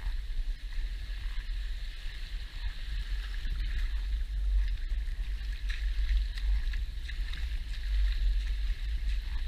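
Small lagoon waves washing in and out over the sand at the water's edge, with a steady deep rumble underneath.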